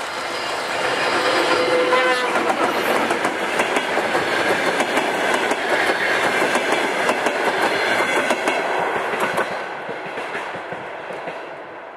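ChME3 diesel shunting locomotive passing close with a short passenger train: its diesel engine running as it goes by, then the carriage wheels clicking over the rail joints, fading away near the end.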